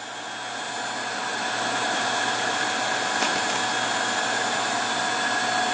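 Davey DynaDrive variable-speed, constant-pressure booster pump running under load with showers open: a steady whir that grows a little louder over the first couple of seconds, then holds.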